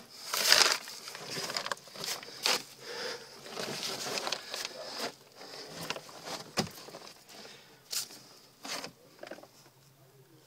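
Someone crawling through a narrow dirt tunnel, with irregular scuffs and scrapes on the soil and rustling handling noise. The loudest scuff comes about half a second in, and there is a sharp knock a little past the middle.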